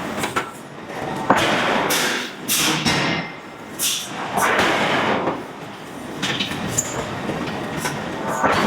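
Hydraulic forging hammer working hot steel billets: a run of heavy blows, each with a hissing rush of noise, repeating irregularly about once a second.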